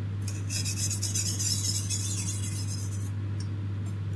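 Knife blade stroked across a small oiled sharpening stone, a steady high rasping hiss for about two and a half seconds that stops near the end: light strokes to work off the burr raised by sharpening.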